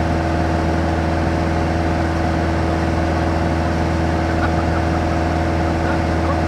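Light touring aircraft's piston engine and propeller running steadily in cruise flight, an even drone heard from inside the cabin.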